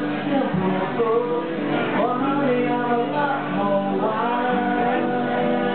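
Live rock band playing: a man singing into a microphone over electric guitar.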